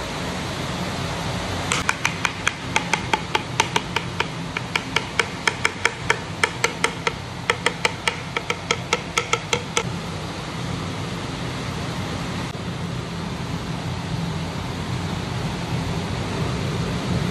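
Hollow knocks on a bamboo stalk, about four a second for some eight seconds, as it is tapped with a rod to shake the cooked biryani out of it. A steady fan hum runs underneath.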